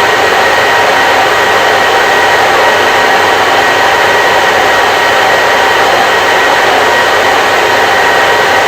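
Hair dryer running steadily: an even rush of blown air with a faint, steady high whine from the motor and fan.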